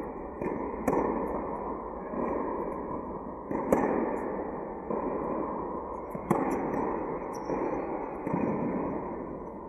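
Tennis ball struck by rackets and bouncing on a hard court during a baseline rally, a sharp pop every second or so, each echoing in a large indoor tennis hall.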